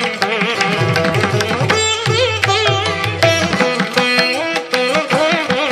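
Background music: an Indian classical instrumental with a plucked string melody. Its notes bend and slide between pitches, over quick repeated plucks.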